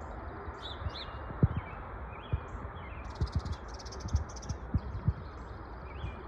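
Small birds chirping, with a fast, dense run of chirps from about three seconds in, over a steady low rumble and scattered soft low thumps on the microphone.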